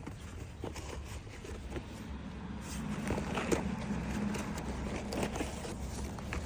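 A flimsy cardboard box and its packaging being handled and opened to get at a wheel hub assembly: scattered scrapes, rustles and small knocks over a steady low hum.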